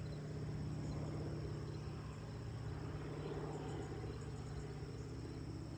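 Boeing Stearman biplane's radial engine droning steadily overhead as it flies past, a low, pulsing hum. Crickets trill in a steady high tone underneath.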